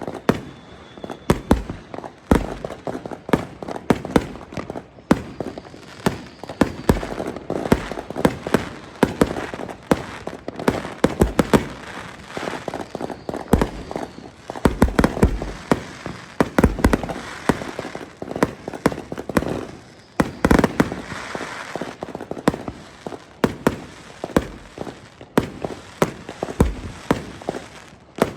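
Gunshots at a shooting range, coming at irregular intervals and often several in quick succession.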